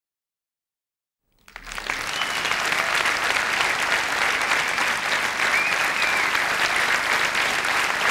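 Large theatre audience applauding, starting about a second and a half in and holding steady.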